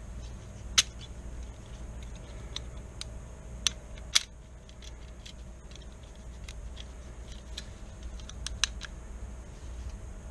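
Metal clicks and small ticks from the trigger group of a Marlin Model 9 carbine as it is handled and the hammer is cocked back. The sharpest clicks come about a second in, around four seconds in and near the end, with lighter ticks between.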